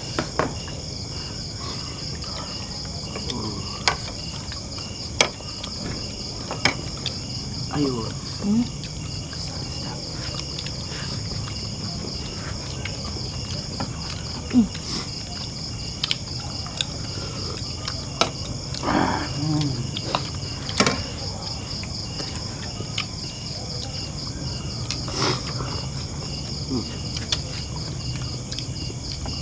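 Crickets trilling steadily in a continuous chorus. Scattered sharp clicks and clinks of plates and spoons sound now and then, with a brief murmured word or two.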